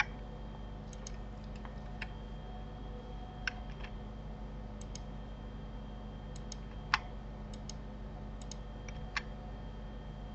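Scattered clicks of a computer mouse and keyboard keys, irregular and a second or so apart, with one sharper click about seven seconds in, over a steady low electrical hum.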